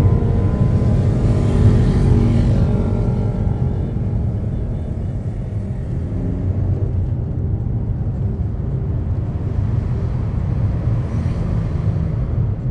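Mazda MX-5 Miata driving with the top down, heard from inside the open cockpit: the four-cylinder engine's note is clearest in the first few seconds, then gives way to steady wind and road rumble.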